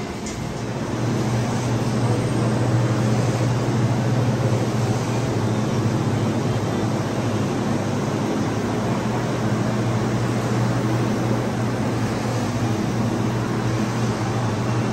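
Steady low machinery hum with a constant drone, swelling slightly about a second in and then holding even.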